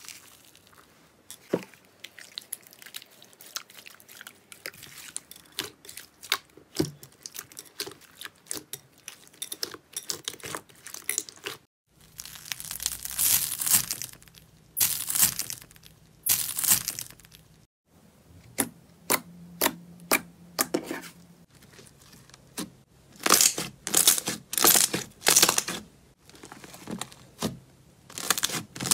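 Hands squeezing and pressing thick slime, giving a run of sharp sticky clicks and pops. In the middle there is denser, crunchy crackling as slime mixed with foam beads is squeezed.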